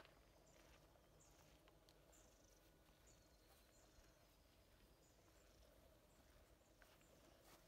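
Near silence: faint outdoor ambience with distant birds chirping in short, high, repeated calls, and a few faint clicks.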